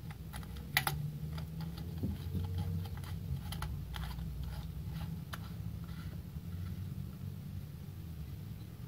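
Scattered light clicks and scrapes of an LED bulb being screwed into a desk lamp's socket by hand, thinning out after about five seconds. A steady low hum runs underneath.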